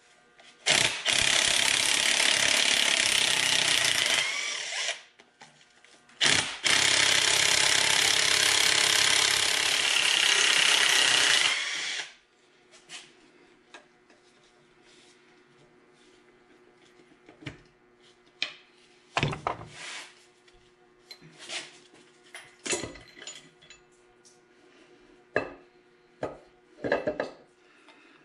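A power wrench run in two long bursts of about four and five seconds, breaking loose the cylinder head bolts on a supercharged 3800 V6. It is followed by scattered light metal clinks and clanks.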